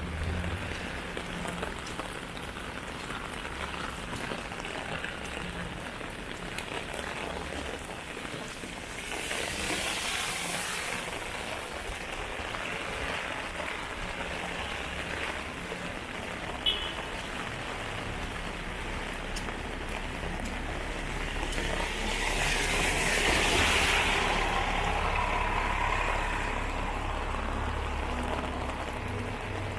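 Heavy rain pattering on an umbrella and on wet pavement, a steady hiss that swells louder twice, briefly about a third of the way through and for several seconds near the end. A single sharp tick sounds just past the middle.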